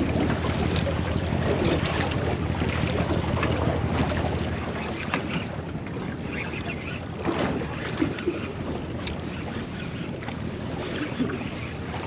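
Wind buffeting the microphone over open sea, heavy at first and easing about four seconds in, with a light wash of water and scattered small clicks.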